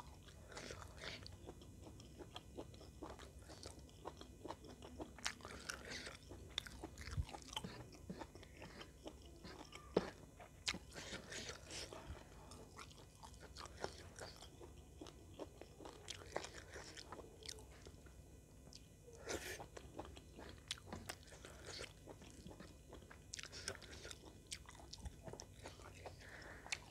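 A person chewing rice and soy-sauce chicken close to the microphone, with many small wet mouth clicks and smacks.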